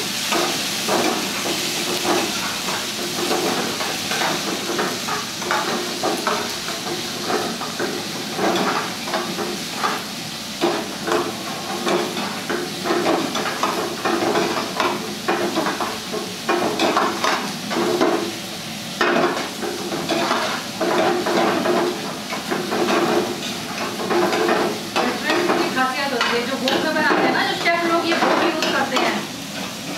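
Long-handled metal ladle repeatedly scraping and knocking against a metal kadhai as capsicum, onion and tomato are stir-fried, with the vegetables sizzling in hot oil.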